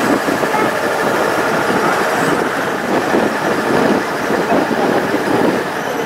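Engine and road noise of a moving bus, a steady rumble and rush heard from a window beside the passenger seats.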